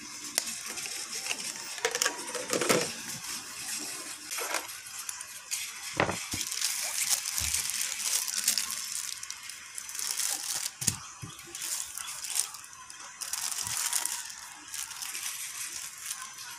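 Plastic courier mailer bag rustling and crinkling as it is handled and turned over, with scattered knocks on the tabletop, the sharpest about six and eleven seconds in.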